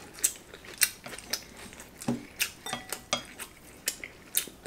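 Chopsticks clicking and clinking against ceramic plates while food is picked up, a scattering of short light clicks.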